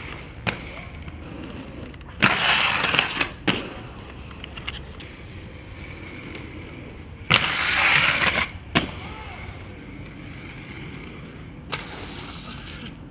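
Inline skates grinding twice, each grind about a second and a half long: a sharp clack as the skates hit the obstacle, a loud scraping slide, and another clack on the landing. A few single clacks of skates on the ground fall in between.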